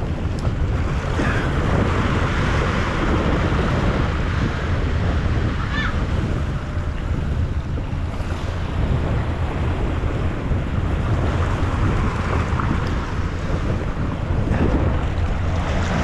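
Sea waves washing over a rocky shore, with wind buffeting the microphone as a steady low rumble.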